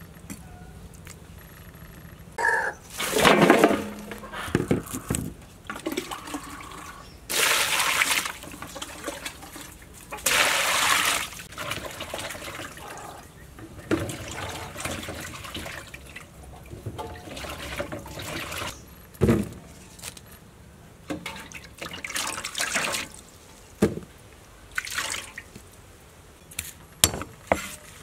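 Water splashing and sloshing in a metal basin in several bursts as pieces of raw beef are washed by hand. A few sharp knocks of a cleaver on a wooden chopping board come near the end.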